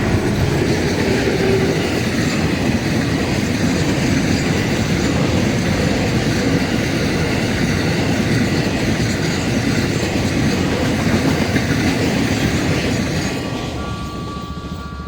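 Freight train of cellulose wagons rolling past, a steady rumble of wheels on the rail joints. A faint tone is heard during the first couple of seconds, and the sound eases off near the end.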